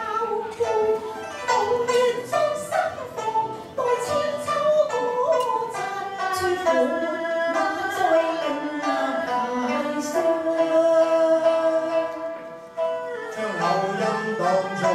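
Cantonese opera duet sung live with plucked-string accompaniment. A woman's voice carries the melody, holding one long note about two-thirds of the way through. Near the end a man's lower voice takes over.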